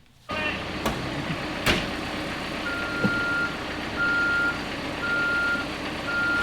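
Backup alarm beeping about once a second, each beep a steady single tone, over the low rumble of a working vehicle. Two sharp knocks come before the beeping starts.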